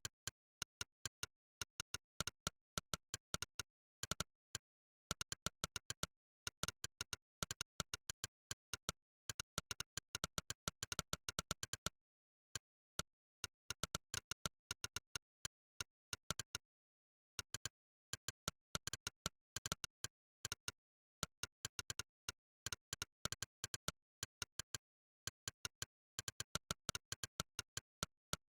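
Monkeytype's "click" keystroke sound: a crisp synthetic click for each key typed, coming in fast runs of several clicks a second with brief pauses between words and phrases.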